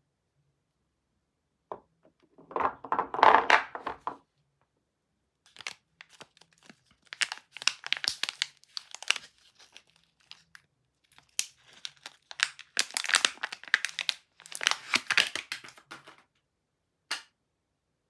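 Clear plastic film wrapper crinkling and tearing as it is pulled off a bar of soap, in several bursts with pauses between them, and a short click near the end.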